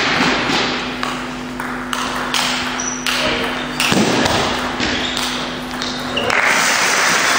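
Table tennis rally: the ball clicking off the rackets and the table in a quick back-and-forth, about two hits a second. About six seconds in, spectators break into applause as the point ends.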